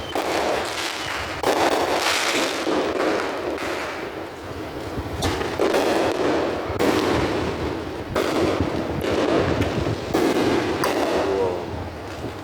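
Fireworks going off in a run of bangs, about seven in twelve seconds, each trailing off in echo.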